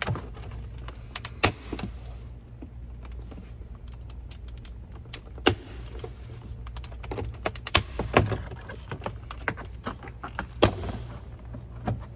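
Plastic retaining clips of a Tesla Model 3 center console's side trim popping loose as the panel is pried up by hand, amid many small clicks and rattles from handling the trim. A handful of sharper snaps stand out, over a low steady hum.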